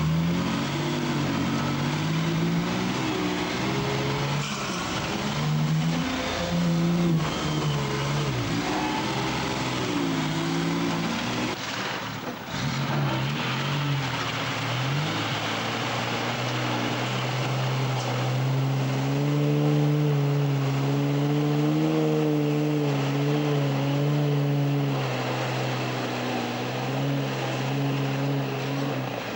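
Mercedes-Benz Unimog engine pulling through deep mud and water, its note rising and falling with the throttle in the first half, then held steady for several seconds, over the wash of water thrown up by the tyres.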